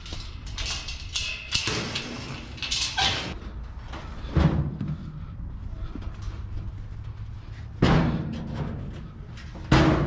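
Salvaged items being handled and set down, with rustling and scraping between several hard thuds and bangs. The heaviest bangs come about eight seconds in and again just before the end.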